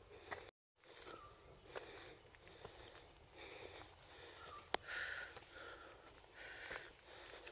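Footsteps on a dirt footpath, with faint wildlife chirps and a steady high whine behind them. A single sharp click a little past the middle is the loudest sound, and the sound cuts out completely for a moment about half a second in.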